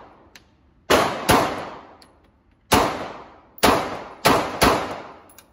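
Glock 19 9mm pistol firing six shots at an uneven pace: a quick pair, a single shot, then three in quicker succession. Each shot rings out with a long echo off the hard walls of an indoor range.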